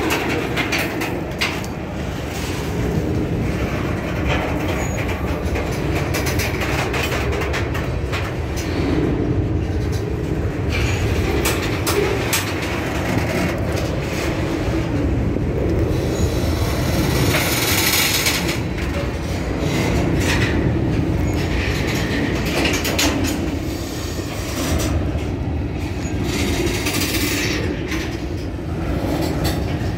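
Covered hopper freight cars rolling past close by: a steady rumble of steel wheels on the rails with clicking over the joints. High wheel squeals rise twice in the second half.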